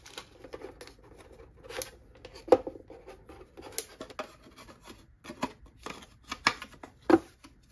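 Faux-wood boards of a tray holder being handled and slotted together on a tabletop: scattered light clicks and knocks, the loudest about two and a half seconds in and near the end.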